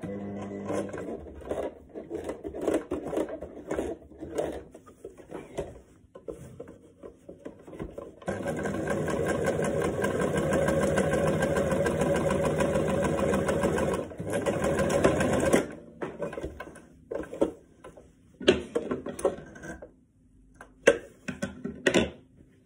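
Electric sewing machine stitching fabric: short stop-start bursts at first, then a steady run of about seven seconds before it stops. After that, rustling and a few sharp clicks as the fabric is handled and drawn out.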